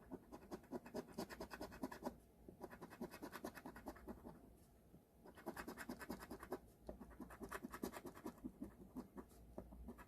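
Scratch-off lottery ticket being scratched: quick back-and-forth scraping strokes on the ticket's coating, in four runs with short pauses about two, four and a half, and six and a half seconds in.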